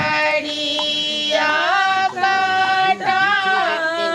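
Voices singing a devotional ritual song in long, held, wavering notes, phrase after phrase.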